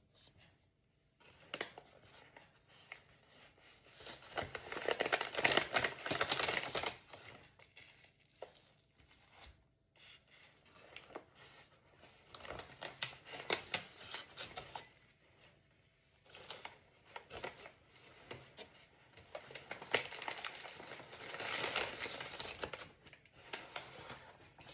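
Food packaging being handled: paper bags and wrappers rustling, crinkling and tearing in irregular bouts, loudest twice.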